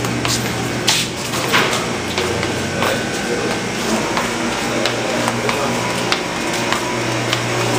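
Small grocery shop ambience: a steady low hum with scattered clicks and knocks over it, and faint music or voices underneath.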